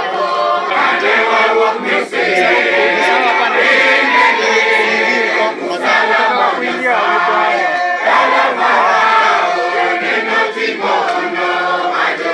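Church congregation singing a hymn together, many voices loud and in full voice.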